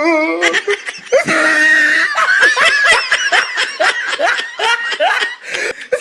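Several people laughing together, loud, high-pitched peals of laughter overlapping one another.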